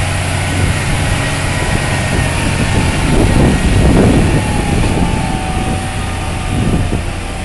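Case IH CVX tractor's diesel engine running hard under load as it drags a weighted tractor-pulling sled. It holds a steady low hum and swells loudest about three to four seconds in as the tractor passes close by.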